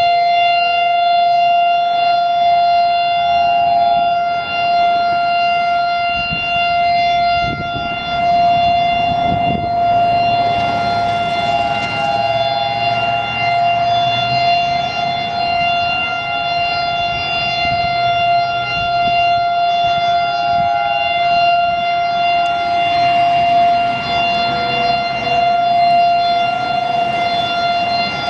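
Federal Signal STH-10 outdoor warning siren sounding the Alert signal, a long steady tone held without rising or falling. A second, slightly higher siren tone comes and goes beneath it.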